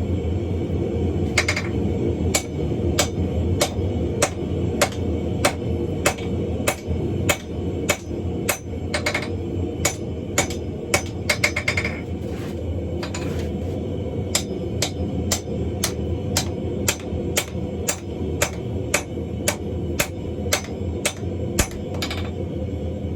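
Hand hammer striking hot coil-spring steel on an anvil, forging a hammer eye drift: a steady run of ringing blows, roughly one or two a second, with a quick flurry of taps about halfway through, over a steady low background noise.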